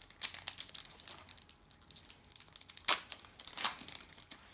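Plastic trading card packet being crinkled and torn open, with a burst of crackling early on and two louder sharp crinkles about three seconds in.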